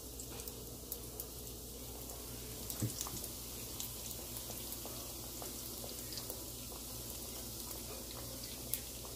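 Biscuit-dough-wrapped Oreos deep-frying in canola oil: a steady sizzle with many small crackles and pops, and one light knock about three seconds in.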